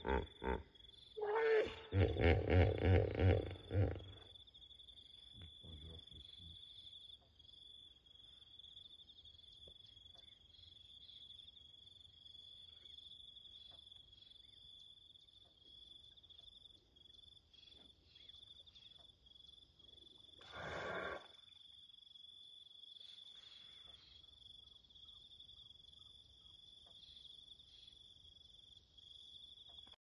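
Hippopotamus calling with a quick run of pulsing, honking grunts in the first few seconds, and one more short grunt about twenty-one seconds in. Between the calls a steady high insect trill carries on.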